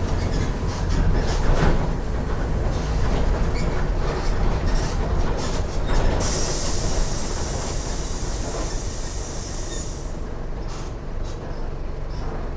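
Mercedes-Benz OF 1418 bus's front-mounted diesel engine running on the move, with body rattles and knocks throughout. About six seconds in, a high hiss of air starts and lasts about four seconds, while the engine noise slowly eases.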